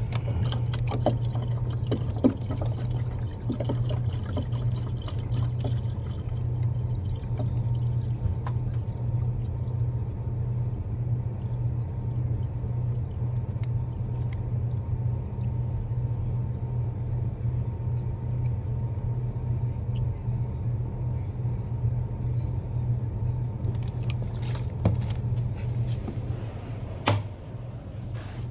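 Water running and gurgling over a steady low hum, with scattered clicks and knocks, most of them near the start and the end.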